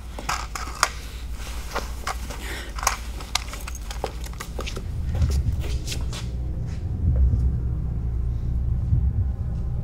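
Rustling and short clicks of a cloth sack being handled and pulled over a person's head. About five seconds in, a low, steady rumble swells in and becomes the loudest sound.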